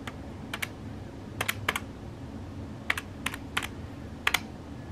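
Keys of a plastic desktop calculator being pressed: about ten short, sharp clicks at an uneven pace, some in quick pairs, as figures are keyed in.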